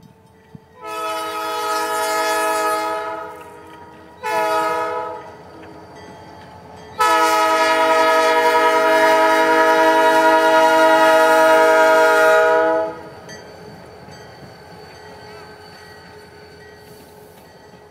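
Canadian National locomotive's multi-tone air horn blowing for a grade crossing: a long blast, a short one, then a long blast of about six seconds, the loudest. After the horn stops, the locomotive's engine and wheels rumble steadily as it passes.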